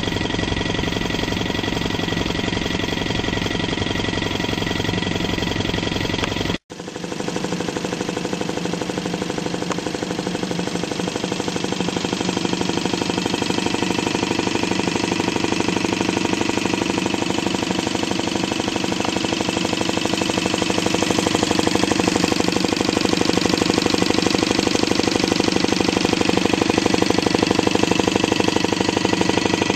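Homemade hot-air Stirling engine running under load, with the fan spinning on its shaft: a steady, rapid mechanical clatter. The sound cuts out for an instant about six and a half seconds in, then carries on as before.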